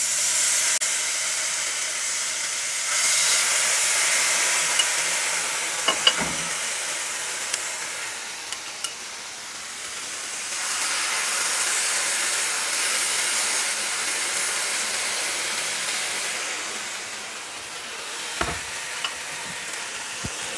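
Marinated chicken breast pieces sizzling as they are laid into a hot, dry non-stick pan. The sizzle swells each time a piece goes in and eases between, with a couple of sharp knocks around the middle and near the end.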